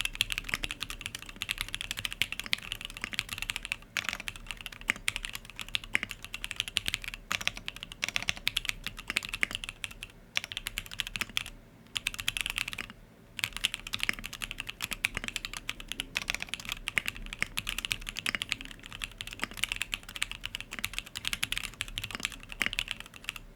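Fast, continuous typing on a custom 65% mechanical keyboard: an aluminium-plate board with plate foam, lubed linear SP-Star Yanyu switches and Infinikey keycaps, giving rapid key clacks with brief pauses between bursts, the longest about twelve seconds in.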